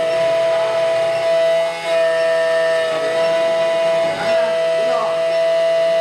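Steady high whine of an SEC E9 automatic key cutting machine's belt-driven cutter spindle milling the cuts into a brass HON66 key blade, with brief wavers as the cutter works along the blade.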